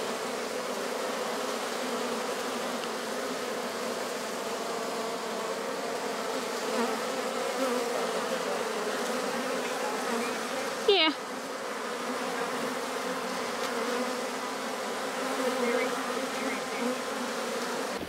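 A honey bee swarm humming steadily as the bees march into a swarm box, the settled tone of a swarm that has calmed. A brief falling whine rings out about two-thirds of the way through.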